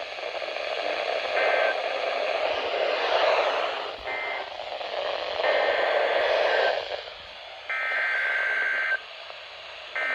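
Emergency Alert System SAME data tones over a radio broadcast with hiss and static. Short two-tone data bursts sound through the static, then near the end come two clean, buzzy header bursts of just over a second each, about two seconds apart. These header bursts signal the start of the next alert.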